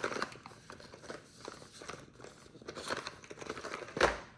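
Nespresso capsule sleeves and their packaging being handled: many small irregular taps and rustles, with one sharper knock about four seconds in.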